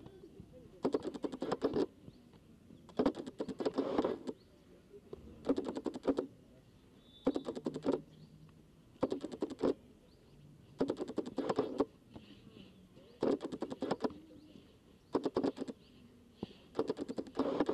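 Taekwondo sparring on foam mats: short flurries of rapid slaps and foot strikes, one flurry about every two seconds.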